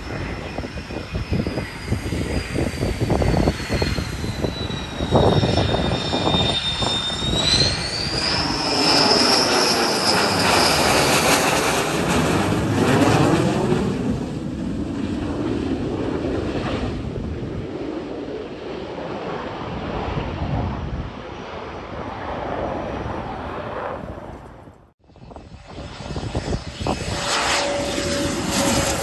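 Fighter jet on landing approach with gear down: its engines run with a high whine that slides down in pitch and then rises again, and the engine noise swells and sweeps as it passes. After a sudden break about 25 seconds in, a business jet's engines are heard as it comes in to land.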